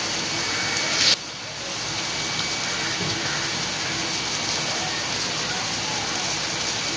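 Onion-tomato masala with spices sizzling in hot oil in a kadhai, a steady hiss. It drops suddenly about a second in, then carries on.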